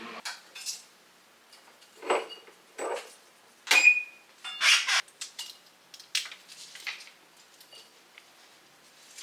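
Dishes and cutlery being handled: a series of separate clinks and clatters, a few of them ringing briefly.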